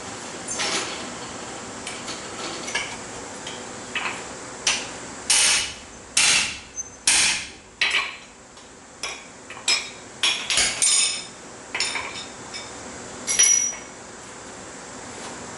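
Blacksmith's hammer striking steel on an anvil in an irregular run of blows, some ringing briefly; the heaviest strikes come about halfway through, with one more loud blow near the end.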